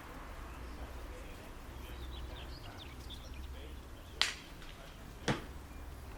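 Outdoor country club ambience: a steady low background hum with faint bird chirps, then two sharp smacks about a second apart.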